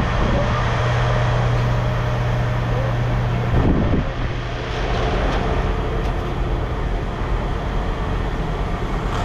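Heavy machinery running steadily, with a strong low hum that drops out about four seconds in while the broader mechanical noise carries on.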